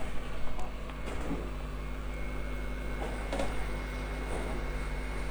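Hot air rework gun blowing steadily with a constant hum and a thin high whine while heating a phone chip to lift it, with a few faint clicks of tools on the board.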